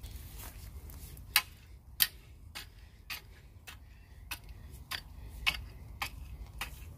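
Sharp ticking clicks repeating evenly, a little under two a second, over a low steady rumble.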